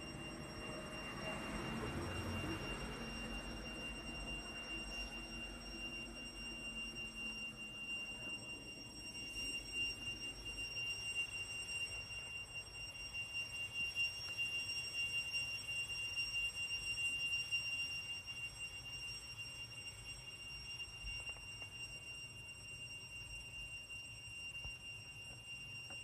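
A cicada singing: a steady, high-pitched whine held on one pitch. A fainter, lower sound fades out in the first few seconds.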